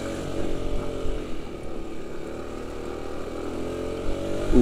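Automatic scooter engine pulling up a steep climb. Its note sags in the first second and rises again near the end as the bike loses momentum on the broken road surface and picks up again.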